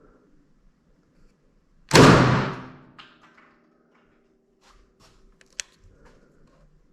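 A single loud gunshot about two seconds in, echoing and dying away over about a second, followed a few seconds later by several small sharp clicks of the gun being handled.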